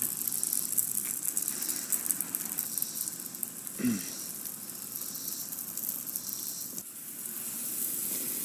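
Lawn irrigation sprinkler heads spraying water with a steady high hiss. A short low sliding hum about four seconds in.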